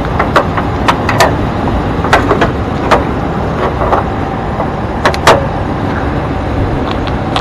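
Ram Power Wagon's engine idling steadily, with irregular sharp metallic clicks and knocks as the Warn winch hook is handled and pulled out of the bumper fairlead; the loudest knock comes about five seconds in.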